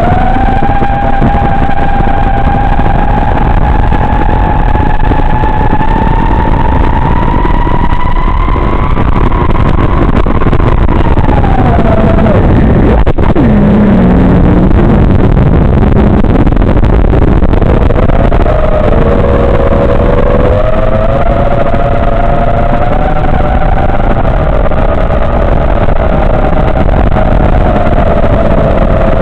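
FPV quadcopter motors whining with the throttle over heavy wind rush. The pitch creeps up, falls steeply about eleven seconds in as the throttle is cut, then climbs back and wavers.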